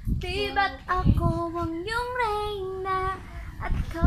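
A woman singing without accompaniment, holding long notes that slide from pitch to pitch, with wind noise on the microphone.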